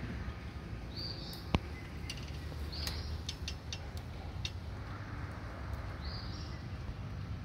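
A wild bird giving short high calls every couple of seconds over a steady low background rumble. A run of quick thin clicks comes in the middle, and one sharp click about a second and a half in is the loudest sound.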